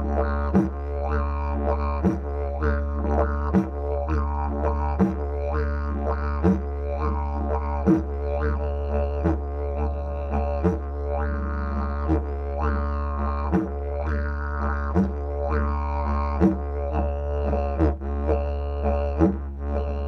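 Background music: a didgeridoo (yidaki) drone, with sharp accents on a steady beat of about three every two seconds.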